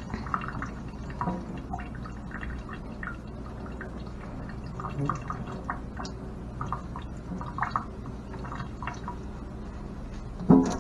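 Water dripping and spattering from wet dreadlocks as they are squeezed out by hand over a sink, a scattering of small, irregular drips. A brief louder sound comes near the end.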